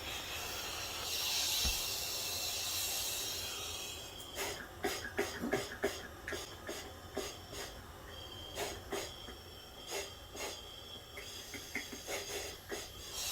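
Scuba regulator second stage free-flowing: a steady hiss of escaping air for about four seconds, a sign the regulator needs repair. Then a run of sharp clicks and knocks from the gear being handled, with a faint high whistle in the middle.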